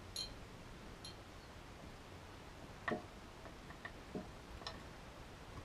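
Faint, scattered light clicks and taps as the metal lower gearbox casing of a two-stroke outboard is handled and worked apart by hand.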